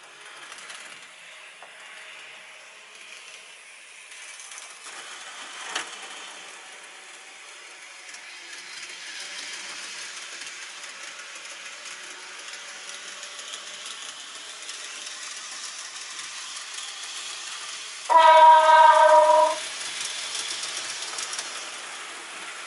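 Model trains running on a layout's track, a faint rolling noise that grows louder after the first few seconds, with a single click early on. About three-quarters of the way in, a loud train horn sounds once for about a second and a half, one steady note.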